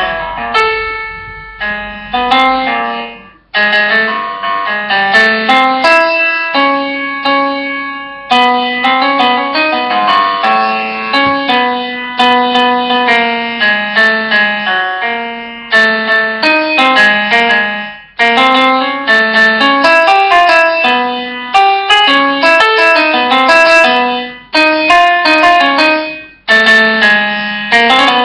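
Background piano music: a melody over chords that breaks off abruptly several times and starts again.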